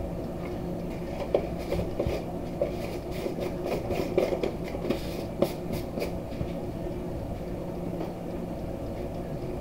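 Light clicks and taps of a plastic seasoning container being handled and shaken, scattered from about one to six seconds in, over a steady low mechanical hum.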